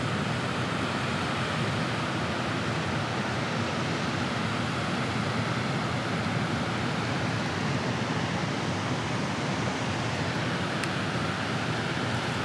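Steady rushing of water pouring through a dam's open spillway gates and churning in the whitewater below, running high because the dam has been opened further. A single faint click comes near the end.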